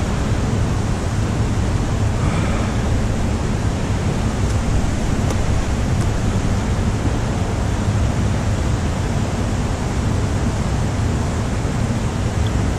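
Fast river current rushing over rapids: a steady, unbroken rush of water.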